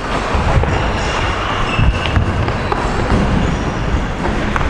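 Footsteps of a person stepping quickly through an agility ladder on a wooden gym floor: a run of irregular soft thuds of shoes landing on the boards, over steady room noise.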